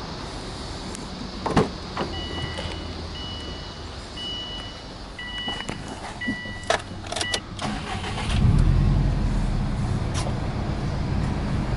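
A few clicks and knocks and a repeating electronic warning chime, then a Subaru Impreza WRX STI's turbocharged EJ20 flat-four engine starts about eight seconds in and settles into a steady idle with a low rumble.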